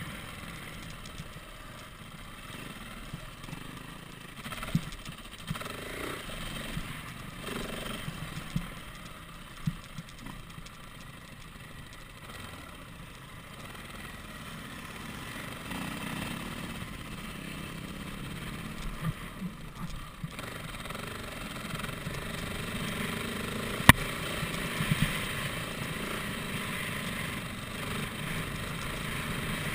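Dirt bike engine running while riding a rough dirt track, with a noisy rush over it. Sharp knocks come every now and then, the loudest one late on.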